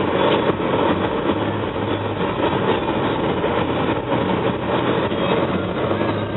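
Steady cabin noise of a 2004 Pontiac Grand Prix GT under way: a low engine hum under a constant tyre and road rumble.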